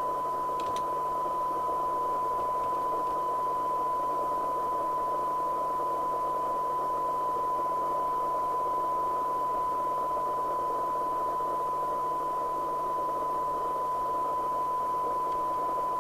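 Cybernet Beta 2000 FM CB radio's speaker putting out a steady 1 kHz test tone over hiss, the demodulated audio of a signal generator's test signal during receiver alignment.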